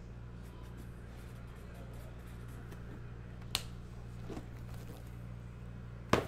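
Two sharp taps from objects being handled on a tabletop, about two and a half seconds apart, the second louder, over a steady low electrical hum.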